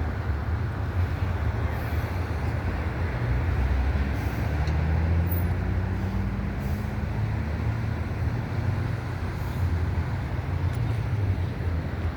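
Steady low rumble of road traffic, with one motor vehicle's engine note rising slightly in pitch partway through.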